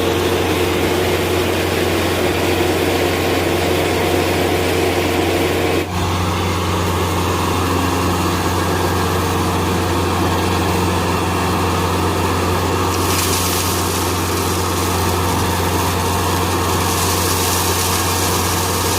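An engine running steadily at constant speed, with a short break and a slight change in its sound about six seconds in.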